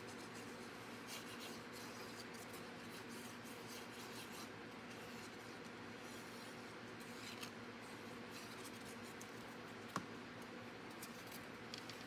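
Faint scratching and rubbing of a liquid glue bottle's applicator tip drawn across cardstock as glue is squeezed on, over a steady low hum. One sharp tap near the end as the bottle is set down on the glass cutting mat.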